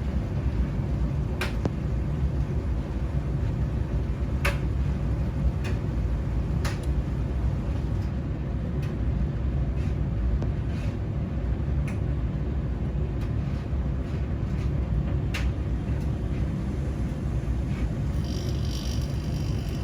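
Domestic washing machines and tumble dryers running: a steady low rumble with irregular sharp clicks, and a high tone coming in near the end.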